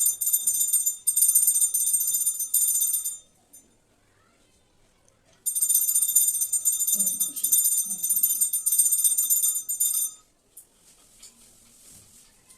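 Brass puja hand bell rung rapidly and continuously, a clear high ringing in two spells of about three and four and a half seconds with a pause between.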